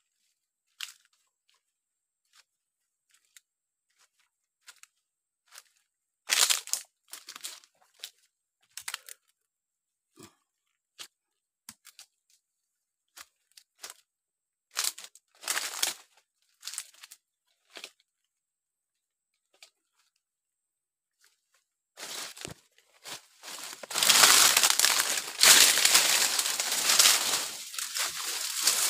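Footsteps crunching over dry fallen leaves and twigs, in scattered crackles and snaps with a few louder clusters. From about 22 seconds in, this gives way to a continuous loud rustle and scrape of leafy branches brushing past a body pushing through dense shrubs.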